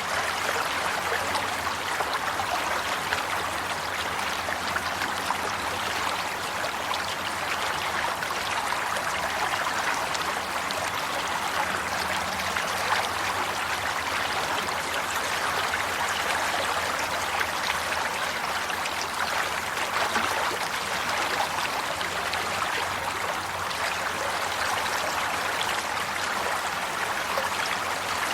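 Water flowing steadily in a stream, a constant rush with fine splashing.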